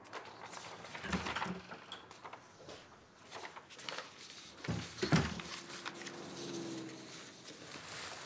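Sheets of paper rustling and being shuffled, with a few sharp knocks and the clunk of a door about five seconds in.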